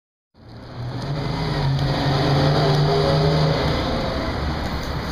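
City street traffic, with a vehicle engine humming steadily for a few seconds over the general road noise. It begins abruptly just after the start.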